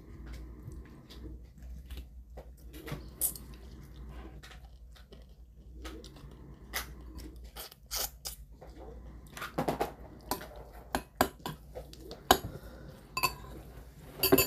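A fork clinking and scraping against a stainless steel bowl while shrimp is picked apart and eaten, with sharp clinks scattered through and some chewing. The clinks grow busier in the second half, the loudest near the end, over a low steady hum.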